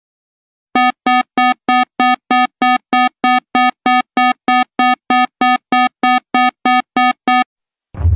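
Emergency alert alarm tone: a run of about twenty identical short electronic beeps, a little over three a second, buzzy and mid-pitched. It starts just under a second in and stops shortly before the end.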